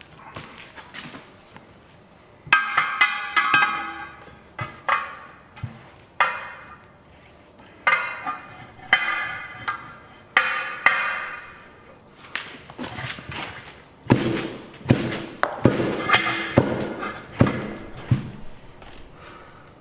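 A run of sharp metal knocks on a steel truck wheel and tire, several ringing on for half a second or so, as a hand tool strikes and works at it. From about two thirds of the way in, a quicker string of deeper, duller thuds as the heavy tire is handled and dropped flat.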